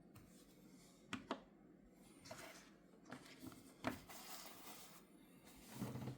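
Quiet handling sounds: a few sharp clicks and taps with short rustles, as of hands working with packaging and small plastic parts.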